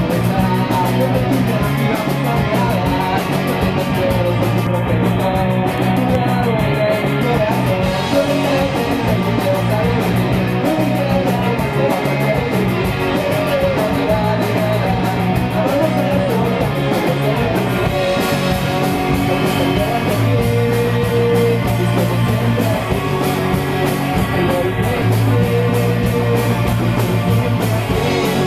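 Rock band playing: electric guitars, electric bass and a drum kit at a steady beat, with a male voice singing.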